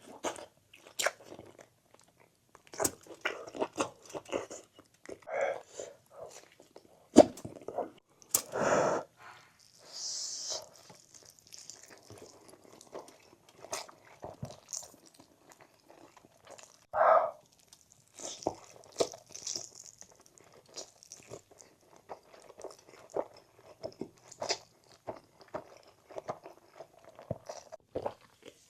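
Close-miked chewing and crunching of pork belly: scattered wet mouth clicks and bites, with a couple of louder short sounds, one about a third of the way in and one a little past halfway.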